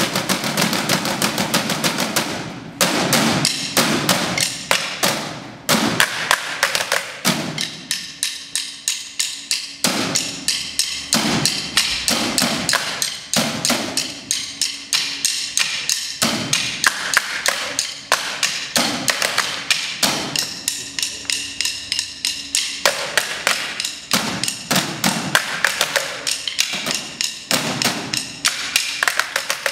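Percussion ensemble playing drumsticks on chairs: a fast, steady stream of sharp clicks and knocks in interlocking rhythm, with lower thuds mixed in.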